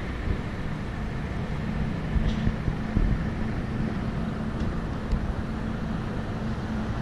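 Steady low rumble of wind on the microphone and road noise, heard from a moving bicycle, with a few faint ticks.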